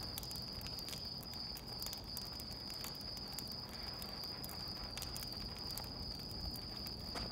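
Crickets trilling steadily in one unbroken high-pitched chirr, with faint scattered clicks.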